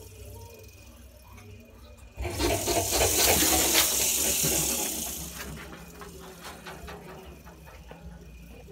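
Porcupine quills rattling and rustling: a sudden loud hissing rattle about two seconds in that lasts around three seconds, then fades, with faint ticks and scrapes before and after.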